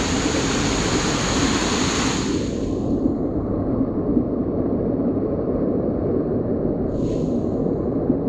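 Steady low rumble of wind buffeting the camera microphone, over the hiss of the flowing river. The higher hiss drops away after about two seconds and briefly returns near the end.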